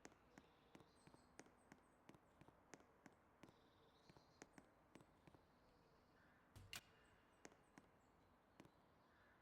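Near silence with faint, irregular clicks, two or three a second, and one louder click about two thirds of the way in.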